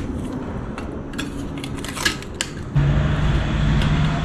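Metallic clinks and rattles as a flexible stainless-steel exhaust pipe is fitted to a diesel heater's steel mounting plate and its clamp worked with a screwdriver. About two-thirds of the way through, a steady low machine hum starts up and stays.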